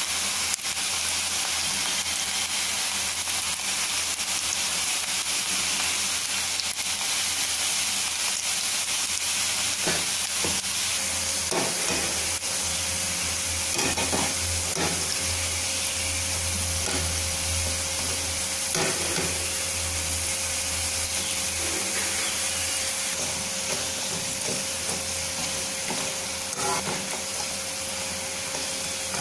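Gram-flour pakoda fritters deep-frying in a pan of hot oil, a steady sizzle. From about ten seconds in, a wire spider strainer stirs through them, with short scrapes and clinks against the metal pan.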